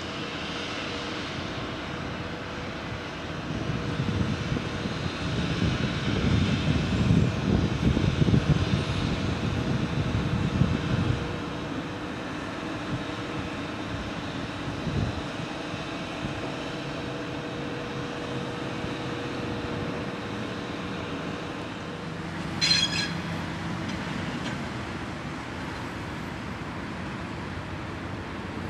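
Railway sounds around an Alstom H3 hybrid locomotive: a steady low hum with a faint constant tone, and a low rumble that grows louder a few seconds in and fades again after about seven seconds. About three-quarters of the way through comes a brief, high-pitched squeal.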